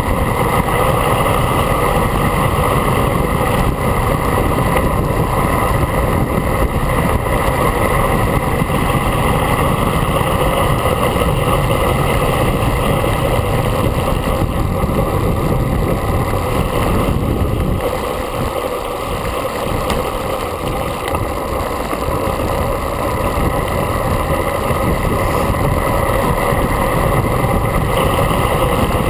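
Wind rushing over a camera mounted on a road bike's handlebars while riding at speed, steady and loud. The rush eases a little for a few seconds past the middle.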